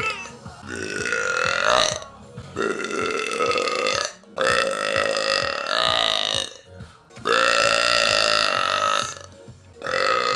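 A woman belching deeply like a man: four long, drawn-out belches one after another, each lasting about one and a half to two and a half seconds, with a fifth starting near the end.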